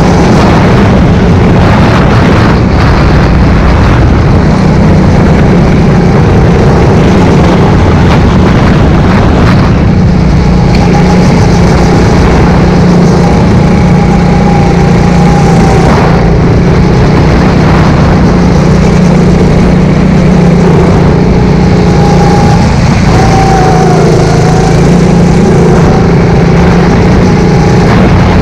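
Go-kart engine running at speed close to the microphone, loud and steady throughout, with a constant noisy rush over the engine note.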